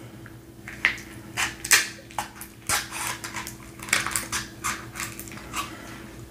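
Kitchen scissors snipping and crunching through a king crab leg shell, a series of irregular sharp cracks several times a second.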